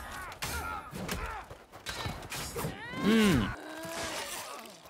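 Battle sounds from a TV fantasy drama's fight scene: fighters grunting and crying out amid the knocks and thuds of blows, with one loud cry about three seconds in.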